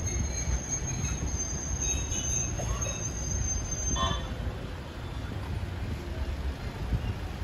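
Street traffic rumbling as cars drive uphill close by, with a thin, steady, high-pitched squeal from the historic tram's wheels on the rails that stops about four seconds in.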